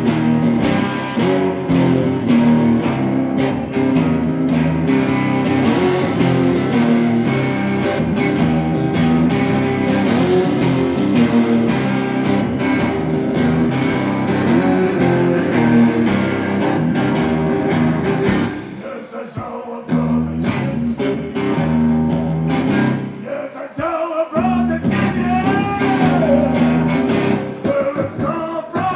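Live band music: two electric guitars playing over drums. The band drops back briefly twice in the last third, and a guitar line with sliding, wavering notes comes in near the end.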